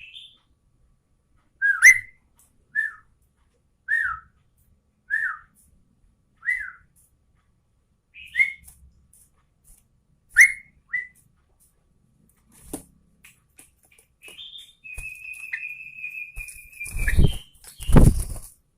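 Sooty-headed bulbul (trucukan) calling: a string of short, clear whistled notes about one a second, then a longer held whistle. Two loud thumps near the end.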